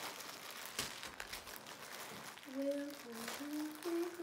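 Clear plastic clothing bag crinkling and crackling as it is handled and opened. From about halfway through, a woman's voice hums a few steady notes over it.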